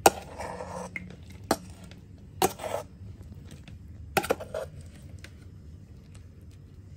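Metal spoon clinking and scraping against a metal bowl and a ceramic plate, several sharp knocks about a second apart, as a blended tomato and onion paste is scooped out and spooned onto the plate.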